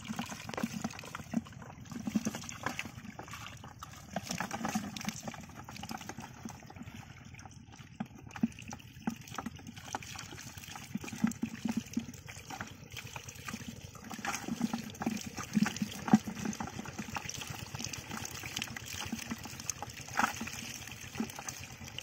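Hands groping in shallow muddy water, making irregular wet splashes and squelches over a steady trickle of running water.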